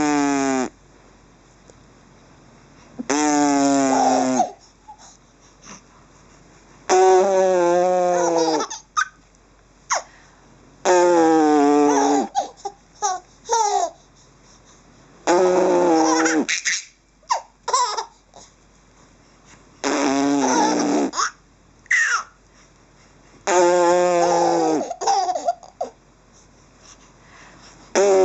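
Baby laughing in bursts at raspberries blown at him, the lip-buzzing raspberries and the giggles coming together about every four seconds, seven times.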